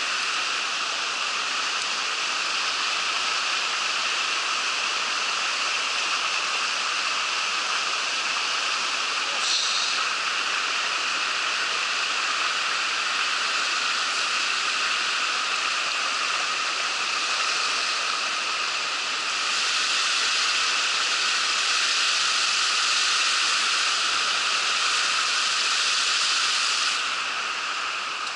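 Mountain stream water rushing over rocks, a steady hiss that grows a little louder for several seconds in the second half.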